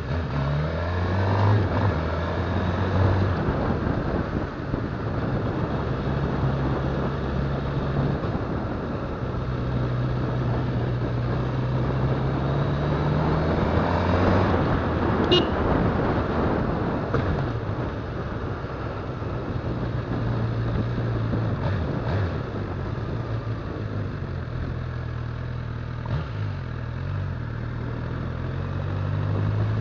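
Motorcycle engine running on the move, with wind and road noise; its revs rise and fall with throttle and gear changes, climbing to a peak about halfway through. A short high beep sounds near the middle.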